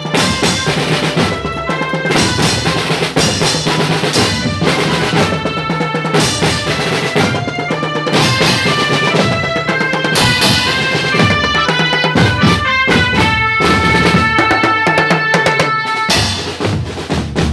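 Marching drum band playing while parading: snare, tenor and bass drums beating a continuous rhythm under a bright tune of short held notes.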